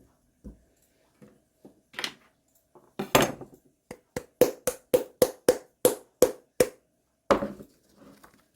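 Rapid knocks of a kitchen utensil striking a hard surface, about four a second for two and a half seconds, after a heavier clatter about three seconds in, with a single louder knock near the end.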